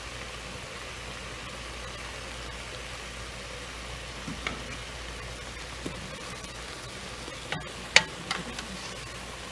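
Sliced zucchini frying in a pan with a soft, steady sizzle, and a few light clicks of a wooden spatula against the pan, the sharpest about eight seconds in.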